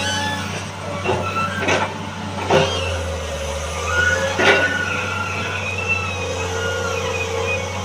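Excavator's diesel engine running steadily while it loads pallet wood, with four sharp knocks in the first half and thin high squeaks over the top.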